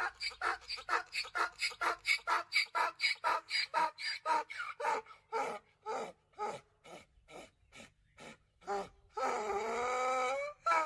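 Animal calls: a fast run of short rhythmic calls, about four or five a second, then one longer drawn-out call with a wavering pitch about nine seconds in.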